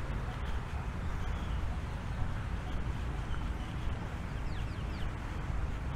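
Steady low rumble of outdoor ambience, with a bird giving a few quick falling chirps about four and a half seconds in.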